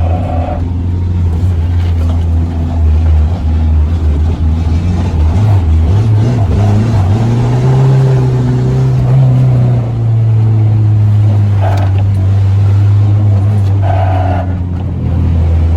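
Renault Twingo engine running under load as the car is driven, its note wavering and climbing about halfway through, then holding steady.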